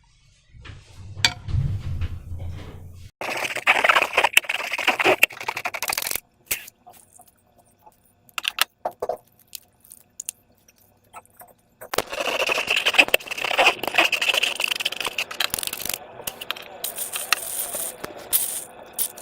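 Slime and rubber balloons being handled, making crackly, scraping, squishing noises in two stretches of several seconds, with a near-quiet gap in between.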